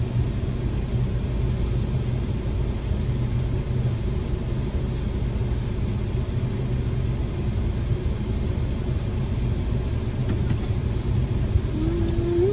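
Steady low rumble of a car's engine and tyres heard from inside the cabin while it drives slowly.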